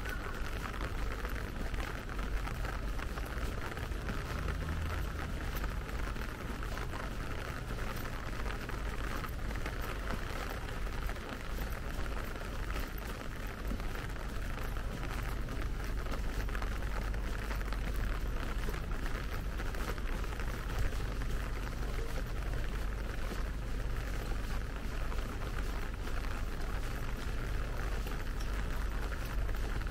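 Light rain falling and pattering on wet paving, an even hiss full of fine drop ticks, over a steady low rumble.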